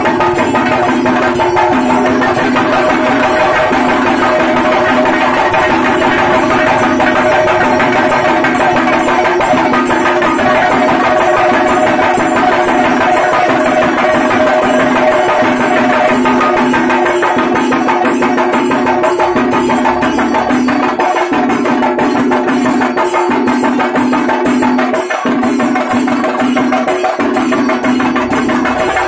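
Kerala temple procession music: rope-laced barrel drums beaten with sticks in a fast, dense rhythm over steady held tones.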